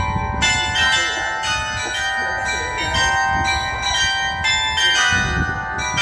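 Tower bells of the Perth Bell Tower being rung in a rapid, continuous sequence, change-ringing style, with new strikes about two to three times a second and each bell ringing on under the next. A low rumble runs underneath.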